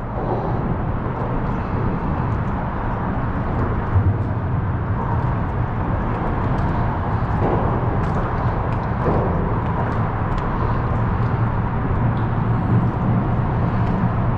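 Steady low rumble of road traffic crossing the bridge overhead, with a few faint ticks.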